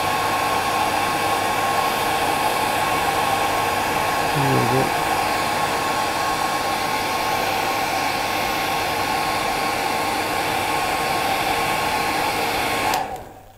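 Handheld hair dryer running steadily with a constant whine, blowing the fly's wing fibres back. It is switched off suddenly near the end.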